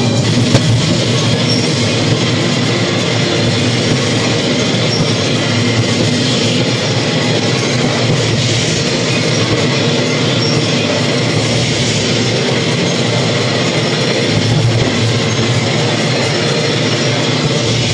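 Loud soundtrack of a cinema ride film playing over the theatre's speakers: a steady, unbroken rumbling and clattering rail-ride sound, like a train or coaster running on tracks.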